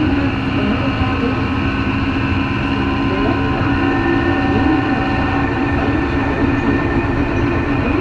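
Tokyo Metro 03 series chopper-controlled subway car running between stations, heard from inside the motor car. A steady mix of rail and running noise with a constant electrical hum made of several held tones, and no clear rise or fall in pitch.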